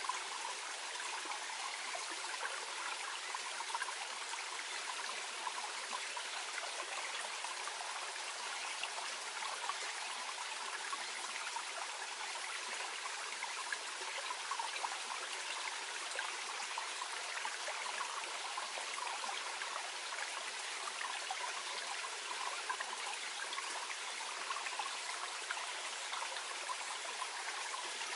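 Small clear stream flowing gently, a steady babbling murmur of water with fine trickles and splashes.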